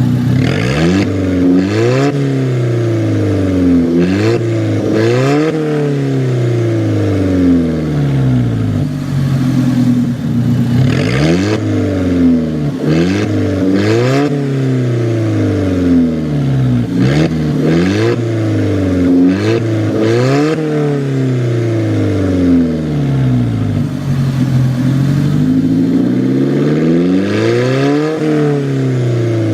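Alfa Romeo sports car engine revved over and over, its pitch climbing and falling back every couple of seconds.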